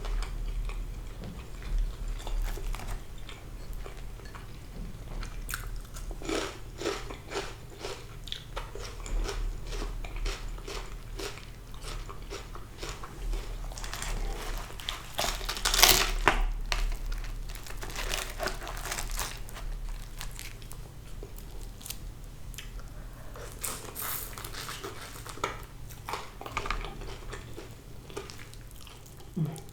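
Close-up eating sounds of a person chewing and biting into crispy fried sea bass: repeated crunching and crackling of the fried skin between wetter chewing, with the loudest crunches about halfway through.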